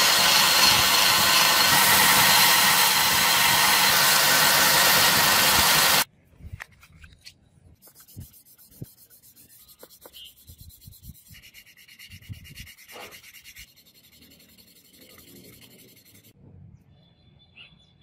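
Belt sander running with a small brass fitting pressed against the belt, grinding loudly and steadily, then cutting off abruptly about six seconds in. After that, quiet scratchy rubbing as the brass piece is wet-sanded by hand on sandpaper.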